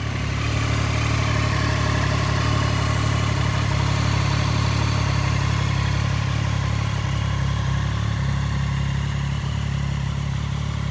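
Triumph Daytona 675's three-cylinder engine idling steadily through an Arrow aftermarket exhaust.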